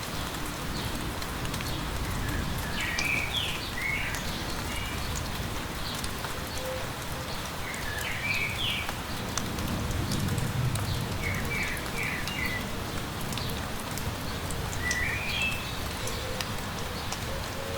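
Steady light rain pattering, with a songbird singing short chirping phrases every few seconds.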